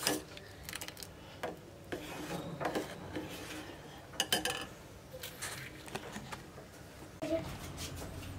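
Steel ladle scraping and clinking against the inside of a stainless steel pot while stirring thick, simmering rice kheer: irregular light scrapes and taps with a few brief metallic rings.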